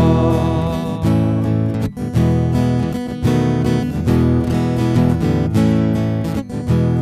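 Two acoustic guitars strumming chords together in an instrumental passage of a song, with a strong stroke about once a second.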